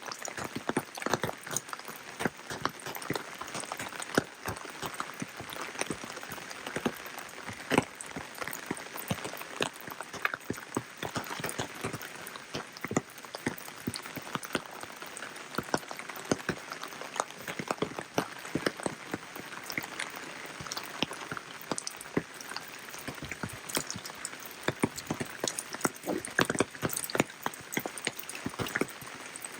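Rain falling, with a steady hiss and many separate drops ticking irregularly on nearby surfaces.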